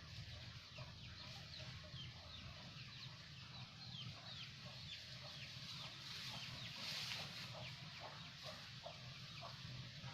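Chickens clucking faintly, with many short high chirps repeating throughout over a steady low hum.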